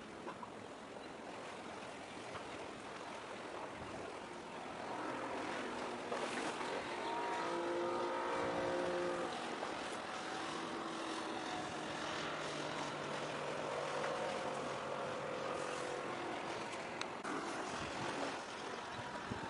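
The drone of a passing engine swells about five seconds in, is loudest a few seconds later, and fades by about sixteen seconds, over a steady hiss of wind and sea.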